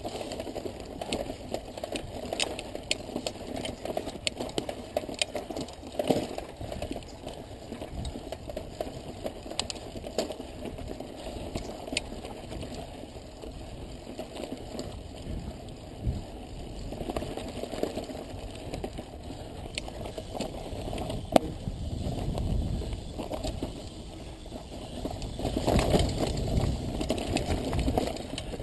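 Mountain bike rolling slowly over loose rock, with tires crunching and the bike rattling. Many scattered clicks and knocks come through, and the rattle grows rougher and louder for a few seconds near the end.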